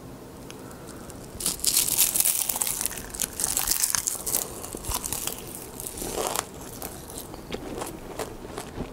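Crisp sheets of seasoned laver (gim) crunching and crackling as they are handled and bitten. The crackle is densest from about a second and a half in for about three seconds, then breaks into scattered crackles and clicks.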